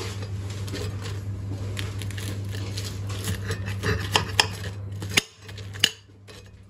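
Knife and fork clinking and scraping on a ceramic plate while cutting into a breaded chicken Kiev, with a few sharper clinks about four to six seconds in.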